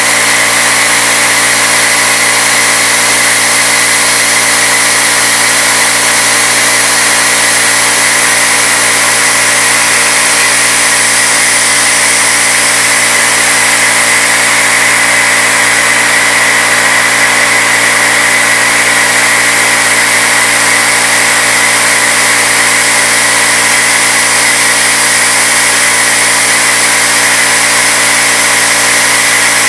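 CNC-retrofitted Bridgeport knee mill steadily cutting aluminum with a 3/8-inch end mill, spindle turning at 2200 RPM on a slow feed: a loud, steady machining whine with a high-pitched tone running through it.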